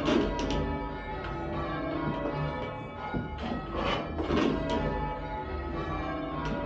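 Church tower bells being rung up: strikes come unevenly, in scattered clusters with gaps of a second or more, and each bell's tone rings on between them.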